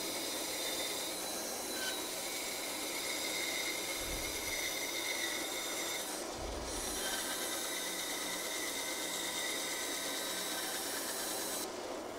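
Small bandsaw cutting a wooden spoon blank: a steady hiss of the blade sawing through the wood over the faint whine of the running saw. The cutting hiss dips briefly about halfway through and drops away near the end.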